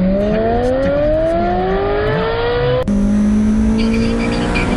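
Car engine heard from inside the cabin, its pitch rising steadily as the car accelerates for nearly three seconds. It then changes abruptly to a steady, lower engine hum.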